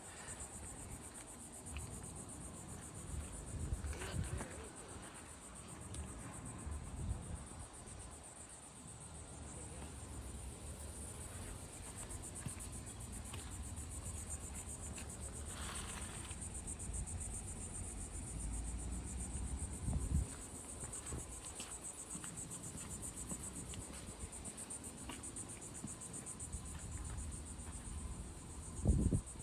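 Steady high-pitched chirring of insects, with low rumbling underneath and a few soft knocks, the loudest about two-thirds of the way in and just before the end.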